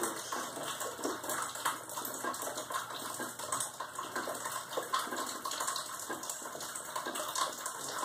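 Water falling through a leaking plaster ceiling and splashing steadily onto the floor below, a constant irregular patter of many drops and streams.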